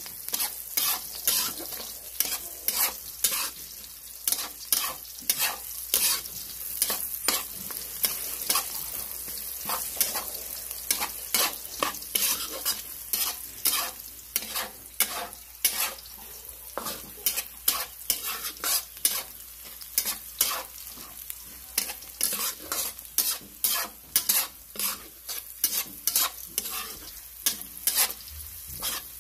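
Food sizzling in a frying pan while a utensil stirs it, with repeated sharp scrapes and clicks against the pan, roughly two a second, over a steady sizzle.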